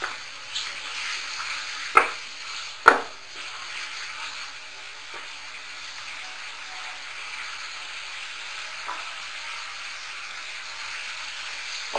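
Mutton liver in tomato masala sizzling steadily in a metal pot while a wooden spatula stirs it, with two sharp knocks of the spatula against the pot about two and three seconds in.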